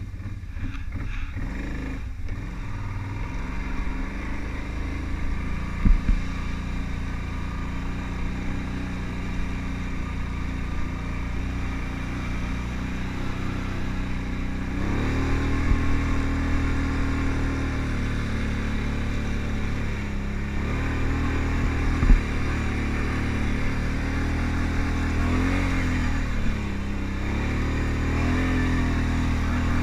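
Kawasaki Brute Force ATV engine running steadily as the quad rides through snow. Its pitch picks up about halfway through and wavers up and down near the end. Two sharp knocks come through, one early and one about two-thirds of the way in.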